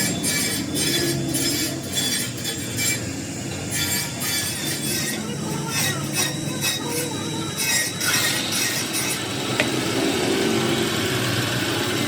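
Workshop noise: quick, repeated rasping strokes, several a second, over a steady background din; the strokes pause briefly about three seconds in and die away after about eight seconds.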